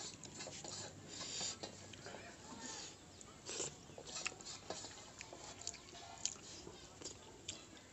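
Close-up eating sounds: a person eating rice by hand, chewing and lip-smacking with many small irregular clicks, and fingers scraping and gathering food on a metal plate.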